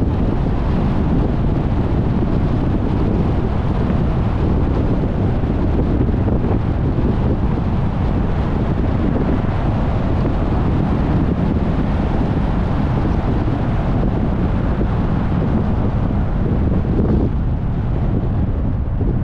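Steady road noise from a moving car, with wind rumbling on the microphone.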